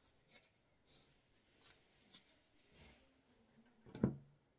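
Faint rustling and light taps of tarot cards handled on a tabletop, with one short, louder sound about four seconds in.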